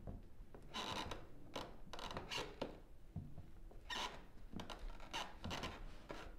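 Faint, irregular rustling and scuffing of a person in a long coat walking slowly across a wooden floor: the coat brushing and the steps scraping, in short bursts.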